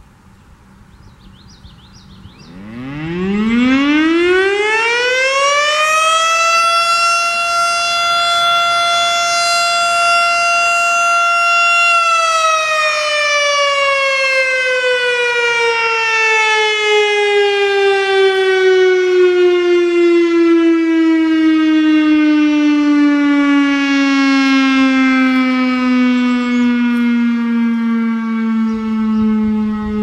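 Federal Signal STH-10 electromechanical outdoor warning siren sounding a test: it winds up about two and a half seconds in, its single tone rising steeply to a steady pitch within a few seconds. It holds that pitch for about six seconds, then winds down, the tone falling slowly in pitch as the rotor coasts.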